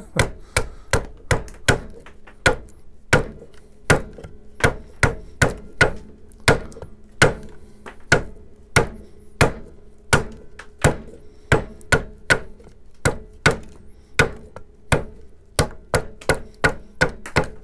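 A hand adze chopping into a block of green alder across the grain, a steady run of short, sharp strikes about two to three a second, each blade bite taking out a chip.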